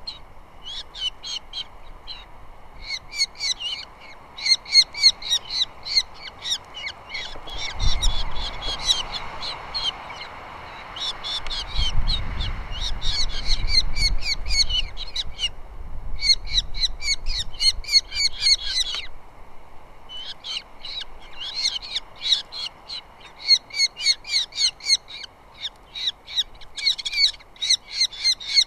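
Osprey calling at the nest: long series of sharp, rapidly repeated whistled chirps, broken by a few short pauses. A low rumble swells under them twice, near the middle.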